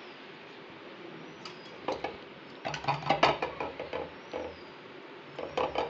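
Clinks and knocks of an aluminium idli plate and a steel bowl as steamed rice flour is tipped out of its cloth into the bowl, a handful of light metal knocks, most of them clustered about three seconds in, and a few more near the end.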